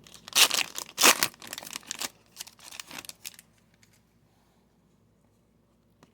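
A trading-card pack's wrapper crinkling and tearing as it is ripped open: a quick run of sharp crackles and rustles, loudest in the first second, dying away after about three and a half seconds.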